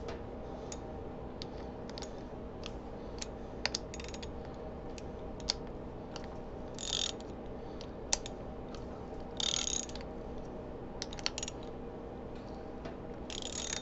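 A 10 mm ratcheting wrench clicking in several short runs as it backs out the small clutch pressure-plate bolts on a Harley Dyna big twin, with single clicks of the tool between runs. A steady low hum sits underneath.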